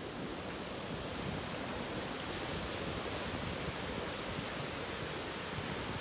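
Steady rush of sea waves and wind, an even wash of noise with no single event standing out.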